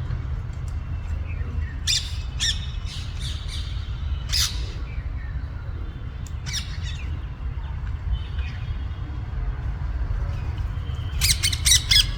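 Parrots squawking: a few short, spaced calls in the first half, then a quick run of louder squawks near the end, over a steady low rumble.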